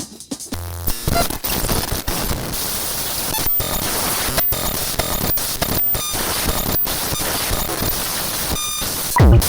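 Audio-visual glitch noise: a short low hum, then a harsh wall of crackling static broken by sudden drop-outs and brief high beeps, ending in a loud sweeping squeal that cuts off abruptly.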